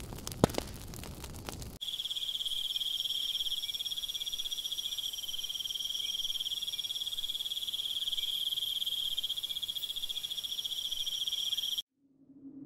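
Fire crackling with sharp pops, cut off about two seconds in. Then a steady high chirring trill of night crickets, which stops abruptly near the end.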